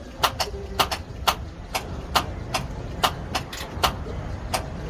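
Sharp clicks repeating at uneven spacing, two or three a second, over a steady low rumble.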